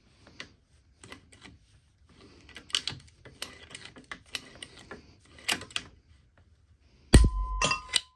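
Vintage ratcheting PVC pipe cutter being worked around 1-inch PVC pipe: a run of irregular metal clicks and creaks as the handles are pumped and the ratchet catches, then a loud sharp snap about seven seconds in as the blade cuts through the pipe.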